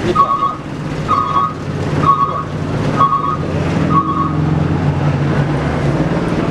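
A reversing alarm beeping about once a second, stopping about four seconds in, over a heavy diesel engine running steadily.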